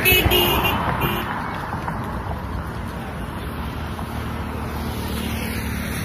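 Steady road-traffic noise from vehicles crossing the bridge, with a few short vehicle-horn beeps in the first second.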